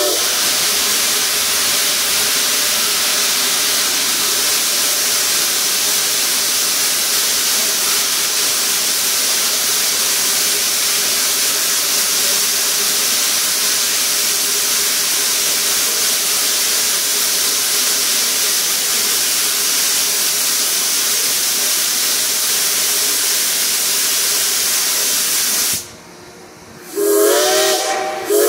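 Steam locomotive letting off a loud, steady hiss of steam, which cuts out briefly near the end. Its multi-note chime whistle then starts to blow.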